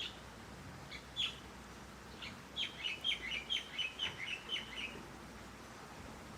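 A songbird calling: a few single chirps, then a quick run of about eight notes, each sliding down in pitch, about three a second, over a faint steady hiss.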